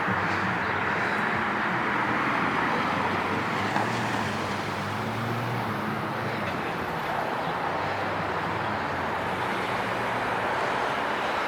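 Steady downtown street traffic: continuous tyre and engine noise from passing cars, with a low engine hum from a nearby vehicle that swells about halfway through.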